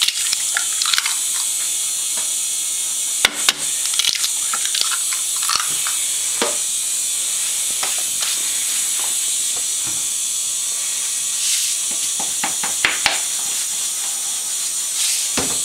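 Scattered knocks and clicks of kitchen things being handled, with eggs going into the steel bowl of a food processor, over a steady high hiss.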